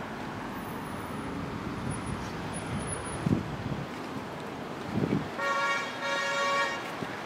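A car horn sounds twice in quick succession, the second honk a little longer, over steady traffic noise. Two dull low thumps come shortly before the horn.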